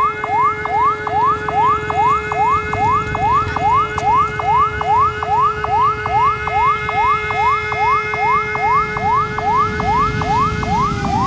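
An electronic siren sounding a fast repeating rising whoop, nearly three a second, over steady held tones, with a low rumble underneath. Near the end the steady tones slide down in pitch while the whoops carry on.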